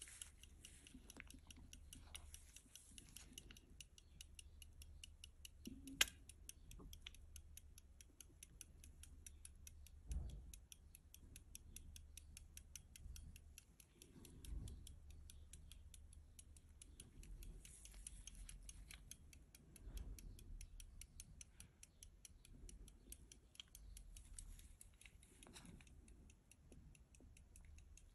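Faint, fast, even ticking of a George Byfield verge-fusee pocket watch movement (London, circa 1775) that is running. Soft handling bumps from the case and gloved hands come through now and then, with one sharp click about six seconds in.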